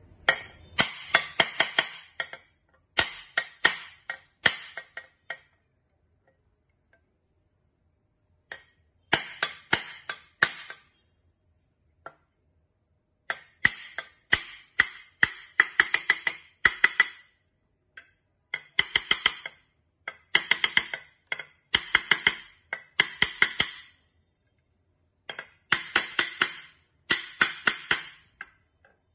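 Steel claw hammer tapping on the crank arm and axle at an exercise bike's belt pulley, in bursts of several quick, ringing metallic blows with short pauses between them.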